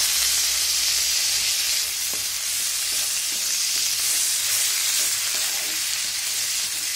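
Butter sizzling in a kadhai as broccoli and sliced garlic are stirred through it with a wooden spatula: a steady frying hiss with a few light knocks of the spatula against the pan.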